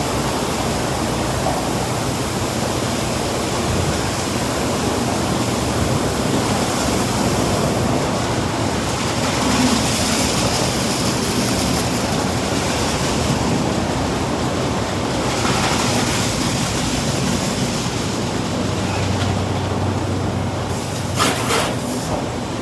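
Automatic car wash system running: a steady rush of spraying water and machinery noise, with a few sharp knocks near the end.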